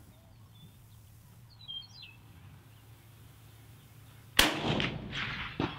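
A single shot from a Soviet Mosin PEM sniper rifle fitted with a Bramit suppressor, about four seconds in: a sharp report with a trailing echo of about a second.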